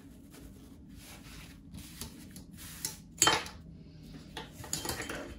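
Watercolour painting supplies handled on a desk: soft rustling, then one sharp clink about three seconds in and a few lighter taps near the end.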